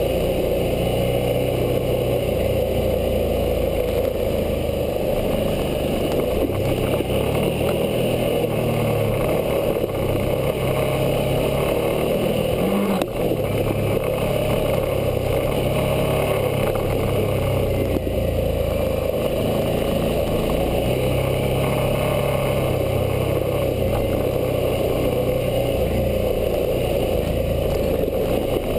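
Suzuki V-Strom 650's V-twin engine running as the motorcycle rides a dirt trail, its pitch rising and falling several times with the throttle, over steady ride and wind noise. One brief knock near the middle.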